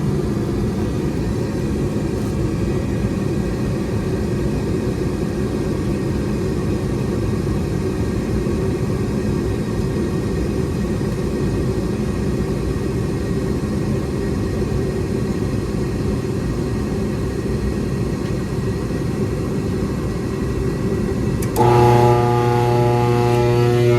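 Ruud LP gas furnace running with a steady low rumble while its blower fan stays off; the blower motor has been diagnosed as bad. About 21 seconds in, a louder steady hum with several even tones sets in suddenly.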